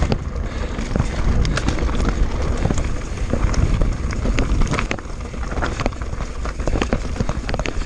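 Pivot Switchblade 27.5+ mountain bike descending a rough, rocky stretch of trail at speed. The tyres crunch over loose rock, with frequent sharp clattering knocks from the bike, under a steady low rumble.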